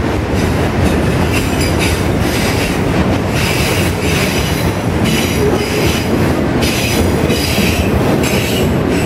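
Freight train of autorack cars rolling past close by: a loud, steady rush of wheels on rail, with a brighter clatter flaring up and fading every second or so.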